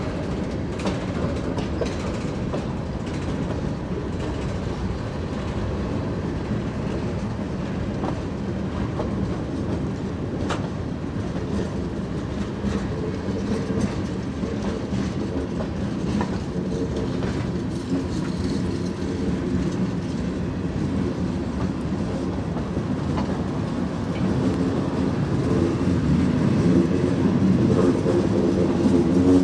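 Freight cars rolling past on the rails: a steady rumble of wheels with a clickety-clack over the rail joints, growing louder near the end.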